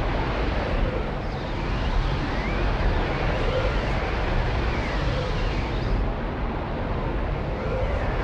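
Magical swirling vortex sound effect: a steady rushing, wind-like noise over a deep rumble, with faint tones swooping up and down every second or two.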